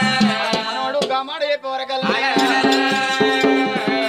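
Folk singing in long held notes over drum beats and percussion, in the sung part of an Oggu Katha performance. A new held note starts about two seconds in.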